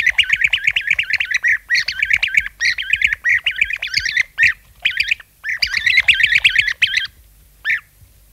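European bee-eater calls: rapid, rolling notes repeated in dense runs with short breaks, stopping about seven seconds in, then one single call near the end.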